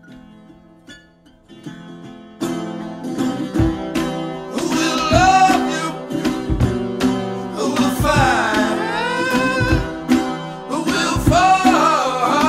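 Background music: a few quiet notes, then the full song comes in about two and a half seconds in with a steady beat and a singing voice.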